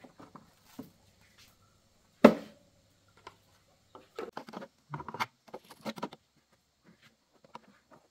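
Hand tools and plastic parts being handled on a motor scooter's under-seat storage compartment: small clicks, one sharp knock about two seconds in, then a quick run of rattling knocks.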